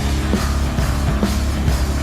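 Background rock music with distorted guitar and a driving drum beat.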